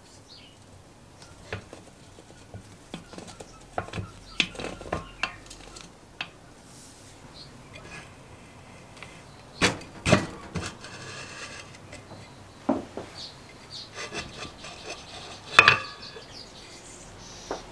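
Scattered metal knocks, clunks and scraping as the rusty shaft and bevel-gear assembly are worked loose inside a Suffolk Punch lawnmower's ribbed metal roller and the roller is handled. The loudest knocks come about ten seconds in and again near the end.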